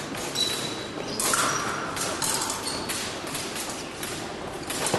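Fencers' épée blades clashing during a bout: several short, high metallic rings at different pitches, with thuds of footwork on the piste over the noise of a large hall.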